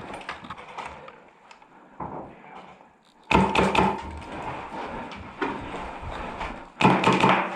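Airsoft electric rifle firing two short bursts of rapid shots, one about three seconds in and one near the end, each lasting about half a second with the gearbox whine under the clatter of the shots.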